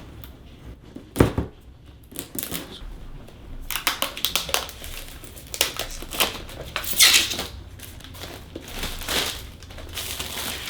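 Cardboard keyboard box being handled: irregular rubbing, scraping and crinkling of the packaging, with a sharp knock about a second in.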